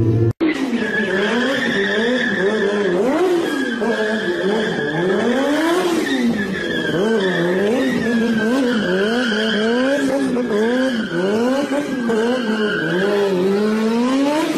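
A vehicle engine revving up and down over and over while its tyres squeal steadily, as in a burnout or drift. There is a brief cut to silence right at the start.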